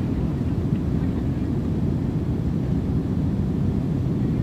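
Airplane cabin interior during takeoff: a steady, deep rumble of engine and airflow noise with no distinct tones or knocks.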